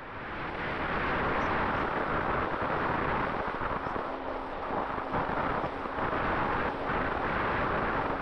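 Air rushing past the onboard camera of a twin-motor electric RC plane in flight, a steady rush with a faint steady hum beneath it.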